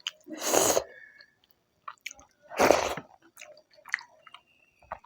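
Close-miked eating: wet chewing and lip smacks with small clicks, and two louder rushing, breath-like sounds, one about half a second in and one a little before the three-second mark, while a mouthful of rice and dal is eaten.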